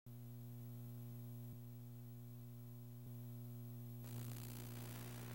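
Faint steady electrical hum with a stack of overtones and a thin, very high steady whine, with two faint clicks. About four seconds in, a hiss with small crackles joins as the countdown leader comes up.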